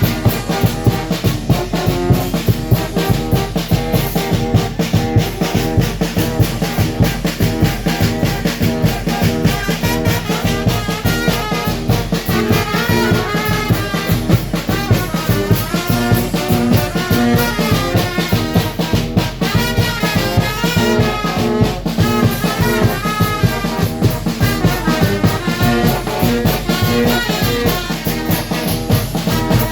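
A Mexican brass band (banda) playing a tune, trumpets and trombones carrying the melody over a steady beat.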